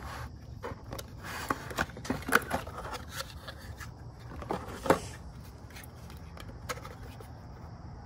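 Cardboard box being opened and a plastic Chamberlain wireless keypad slid out and handled: scraping and rubbing with a run of clicks and taps, the sharpest about five seconds in, then only faint handling.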